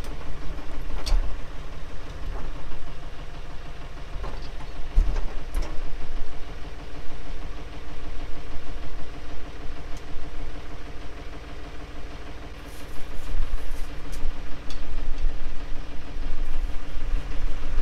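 Valmet 505 tractor's engine running steadily while the three-point hydraulic lift is worked up and down to purge air from the freshly refitted lift cylinder. A few sharp metallic clicks and knocks, and the engine sound grows louder about twelve seconds in.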